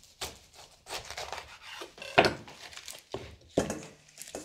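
Chef's knife cutting through a fresh pineapple and knocking on a wooden cutting board: a run of irregular knocks and scrapes, the loudest about two seconds in.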